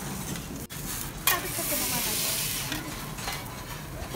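Food sizzling on a steel teppanyaki griddle. About a second in, the sizzle suddenly grows loud, holds for a second or so, then eases off.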